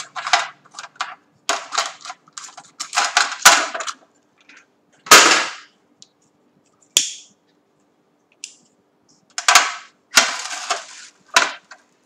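Clicks and knocks of small objects being picked up and set down on a tabletop. The loudest is a longer, noisier hit about five seconds in.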